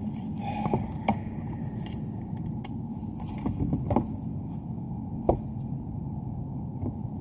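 Handling noise as a small bass just landed is held and unhooked: scattered clicks and knocks, the sharpest about a second in, near four seconds and past five seconds, over a steady low rumble.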